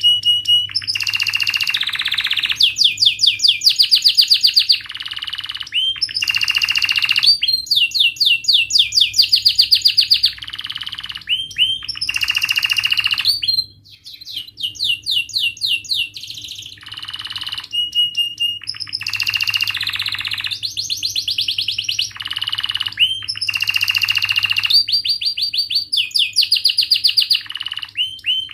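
Domestic canary singing loudly: fast rolling trills of rapidly repeated notes alternate with sharp chirps in phrase after phrase, with short pauses between them and a brief break about halfway.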